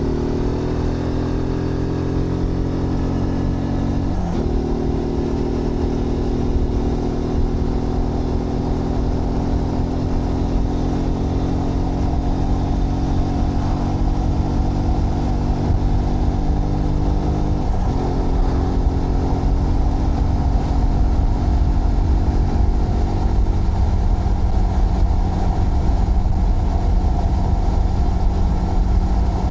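Zontes GK 125 single-cylinder 125cc motorcycle engine pulling under acceleration, its pitch climbing steadily and dropping sharply twice, about 4 and 18 seconds in, as the rider shifts up a gear. In the later part a rush of wind noise grows as the bike gathers speed.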